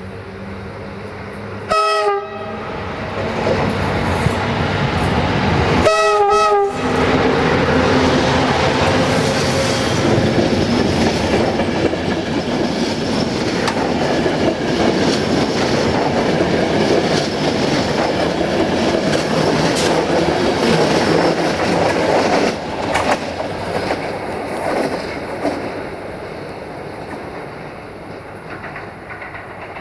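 060-EA1 electric locomotive sounding two short horn blasts a few seconds apart, the second slightly longer, then its train of passenger coaches rolling past with wheels clattering over the rail joints, fading as it draws away.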